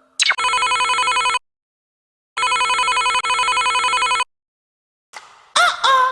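Electronic telephone-ring sound effect from a sound machine: a quick rising swoop, then a rapidly trilling ring in two bursts, the first about a second long and the second about two seconds, with a pause of about a second between.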